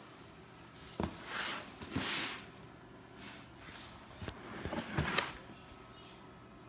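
Sneaker box and its wrapping being handled during unboxing: a few light knocks and several short rustling swishes.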